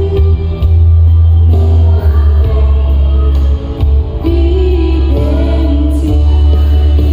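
A woman singing a worship song into a handheld microphone, amplified through the church's sound system, over accompaniment with a strong, steady bass.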